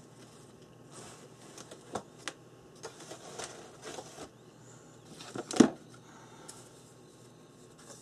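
Hands handling art supplies on a work table: a run of small clicks and rustles, then one louder knock a little past halfway.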